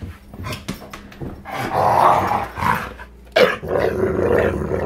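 Rottweiler growling in play as she goes at a basketball, in rough stretches that grow longer and steadier over the second half. A few short knocks come in the first second.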